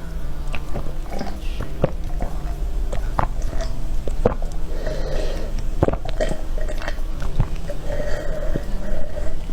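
Close-up mouth sounds of a person drinking: gulping swallows with wet clicks of the lips and tongue at an irregular pace, some of the swallows throaty and burp-like.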